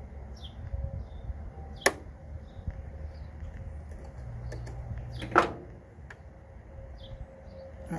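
Two sharp metallic clicks, about two and five and a half seconds in, from parts and tools being handled while the self-propelled gear drive of a Toro Super Recycler mower is put back together, over a low steady rumble.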